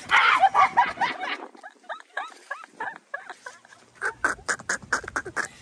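A woman's high-pitched squealing, wheezy laughter: loud shrieks at first, then short squeaks and a quick run of sharp snorting bursts near the end.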